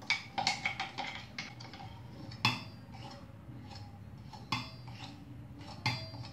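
Stainless steel kitchen utensils clinking: a steel tumbler and plate knocking against steel bowls and a pot. A quick run of light taps comes first, then three separate louder clinks, each ringing briefly, a couple of seconds apart.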